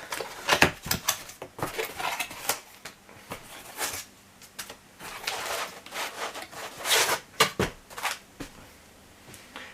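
A parcel being opened by hand: irregular rustling, scraping and tearing of packaging, with sharp clicks and knocks.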